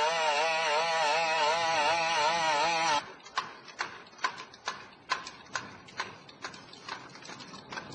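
Boston Dynamics BigDog's two-stroke engine running with a loud buzz that wavers in pitch. About three seconds in it cuts off abruptly, giving way to the clatter of a cable-tethered four-legged robot's feet striking a hard floor, about two steps a second.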